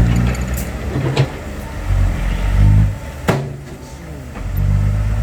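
Diesel dump truck engine labouring in loose sand, revving up and easing off, with a few sharp metallic clunks. It drops back for about a second past the middle, then picks up again. The truck is struggling to get through.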